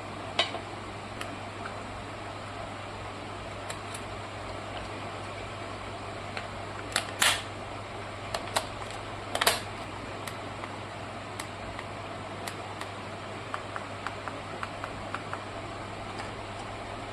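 Scattered clicks and a few short, louder rustling knocks from handling a toy car and its packaging, with a quick run of small ticks near the end, over a steady low hum.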